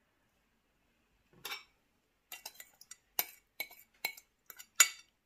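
Utensils clinking and knocking against a bowl in a quick run of short strikes, starting about a second and a half in, as noodles are tossed with tom yum sauce.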